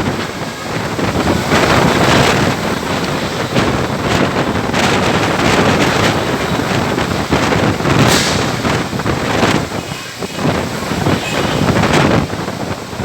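Storm wind gusting hard against the microphone: a loud rushing and buffeting that swells and dips, with a sharper gust about eight seconds in.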